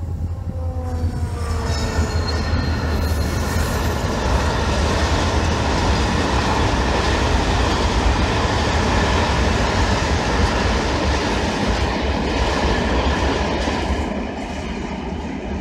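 Freight train of cereal hopper wagons rolling over a viaduct: a loud, steady rumble and rattle of wheels on the rails. There is a falling tone in the first two seconds, and the noise eases off about two seconds before the end.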